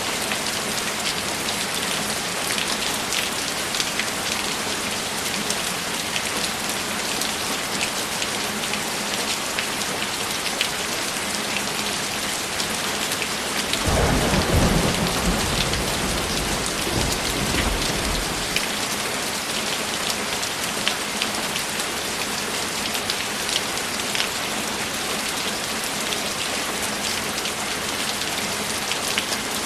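Steady rainfall with a constant patter of drops. About halfway through, a roll of thunder comes in suddenly, low and rumbling, and dies away over about four seconds.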